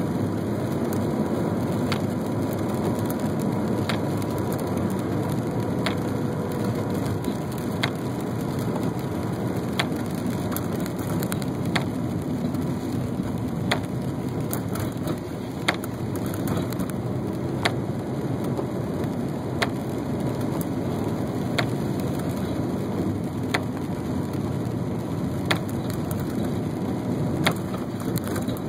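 Steady road and rain noise inside a moving car's cabin, with a short sharp click from the windshield wipers about every two seconds.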